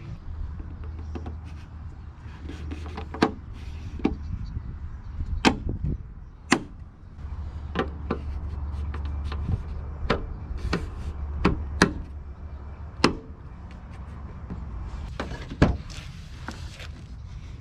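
Scattered sharp clicks and knocks of car body and trim parts being handled and clipped on, over a low steady hum.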